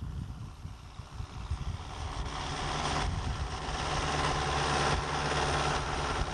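International 785 XL turbo tractor's diesel engine running steadily while pulling a round baler through hay, growing louder from about two seconds in as it closes on the microphone, with a rising hiss over the engine note.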